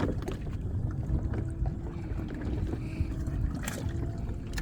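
Small fishing boat's engine running steadily under a low rumble, with a few sharp knocks, the loudest near the end.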